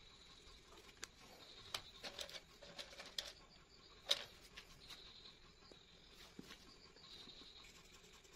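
Faint clicks and light taps of coloured pencils being set down and picked up, a run of them a second or two in and the sharpest about four seconds in, over a low hiss.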